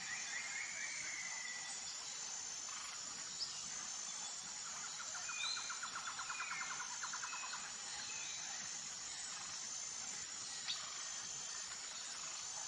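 Outdoor background of birds chirping over a steady, high, evenly pulsing insect-like trill. Near the middle a rapid pulsed trill runs for a couple of seconds, and there are two brief clicks.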